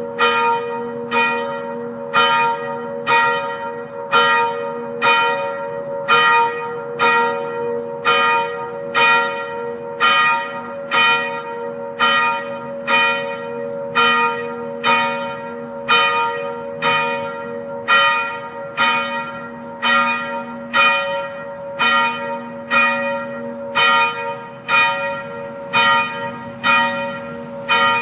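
A church bell tolling, struck about once a second at an even pace. Each stroke rings on into the next, so its hum never dies away.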